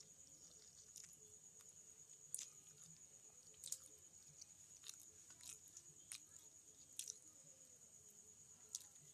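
Faint sounds of fingers mixing rice with potato curry in a steel plate: soft squishing with about eight short sharp clicks at irregular intervals, over a steady high insect trill.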